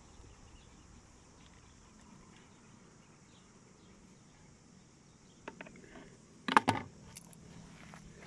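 Shells and beach pebbles clattering briefly under a hand as they are scooped up from the sand: a small click about five and a half seconds in, then one short crackling clatter about a second later, over a quiet steady high hiss.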